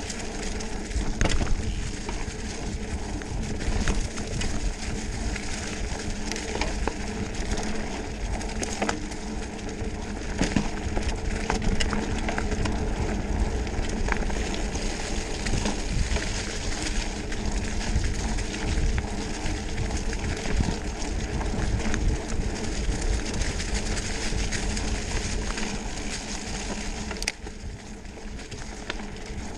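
Mountain bike rolling fast over a dirt trail covered in dry leaves, with wind rushing on the microphone and the bike clattering and clicking over bumps.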